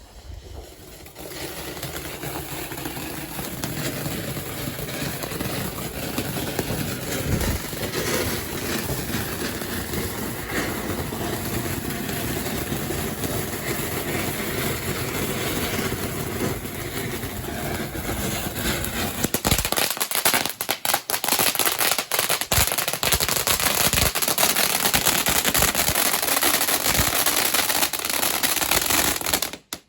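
Fireworks going off: a continuous hissing, crackling noise that grows louder about 20 seconds in, with many sharp crackles, then stops abruptly at the end.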